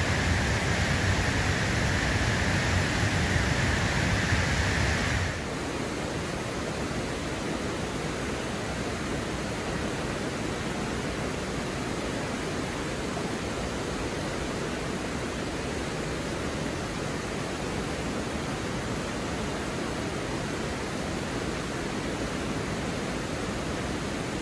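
Steady rushing roar of a waterfall. About five seconds in it cuts to the quieter, even rush of a creek running over rocks.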